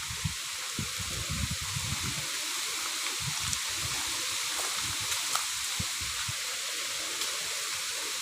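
Strong wind through a bamboo grove: a steady rushing hiss of leaves, with gusts buffeting the microphone in uneven low rumbles.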